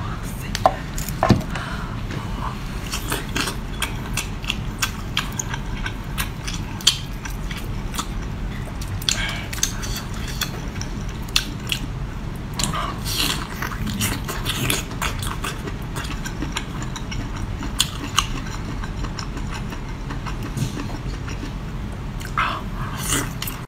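Close-miked chewing and biting of spicy sea snail meat: irregular wet mouth clicks and smacks over a steady low hum.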